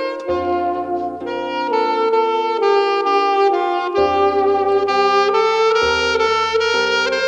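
Saxophone playing a slow melody of held notes over an accompaniment whose bass notes change every couple of seconds.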